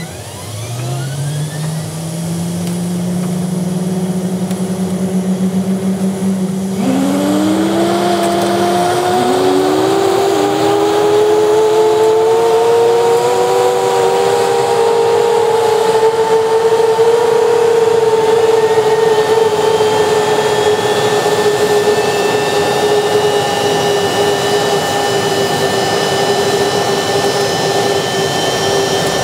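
F-15J Eagle's Pratt & Whitney F100 turbofan engines starting: a whine climbs and holds at one pitch. About seven seconds in, a growing rush of noise and further rising whines come in as the engine spools up, settling into a steady jet whine with high tones.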